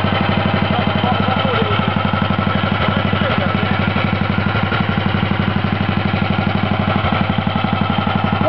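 Neville Evans 500cc single-cylinder overhead-cam racing engine, based on the Norton SOHC 500, idling steadily with a rapid, even beat of firing pulses.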